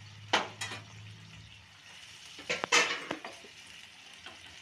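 A spatula stirring chicken pieces in a nonstick pan of cooking liquid, over a low sizzle. There are sharp scrapes and knocks about a third of a second in, and again in a cluster near three seconds.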